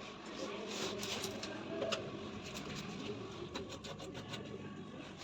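Scattered light clicks and scrapes of washing-machine parts and tools being handled, over a steady background noise.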